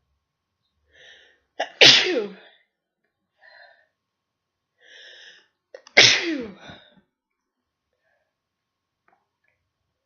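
A person with a cold sneezing hard twice, about four seconds apart. Each sneeze is preceded by a few quick catching breaths and ends with a falling voiced tail.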